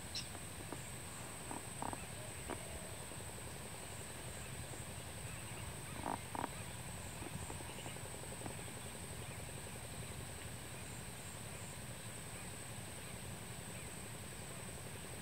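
Steady outdoor hiss under a constant high whine, with a few short, faint bird calls; the loudest are a quick pair about six seconds in.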